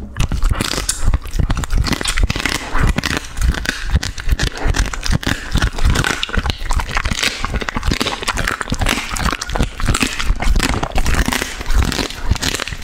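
Border collie chewing and crunching raw food taken from a hand, a dense, irregular run of wet crunches, snaps and clicks.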